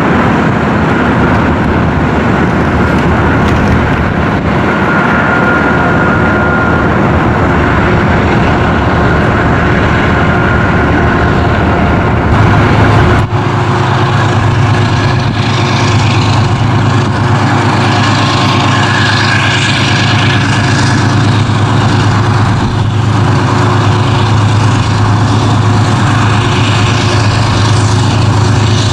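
Amtrak GE Genesis diesel locomotive pulling a passenger train, heard from above over steady road traffic and open-air noise. Its steady low engine hum comes in about twelve seconds in and holds as the train approaches.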